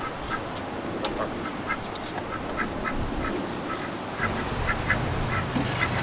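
Ducks quacking, a run of short repeated calls, with a low steady hum joining about four seconds in.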